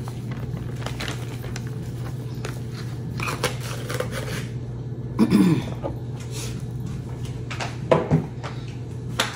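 Scattered clicks and light clatter of seasoning containers being handled over a steady low hum, with a brief falling tone about five seconds in.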